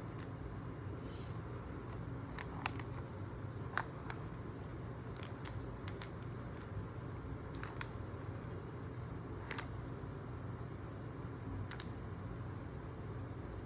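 Handling of a maze safe puzzle box: a few light, irregular clicks and taps as its parts are moved, over a steady low hum.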